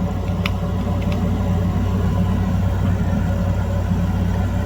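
Steady low hum, like a fan or mains-powered bench equipment running, with two faint clicks in the first second or so.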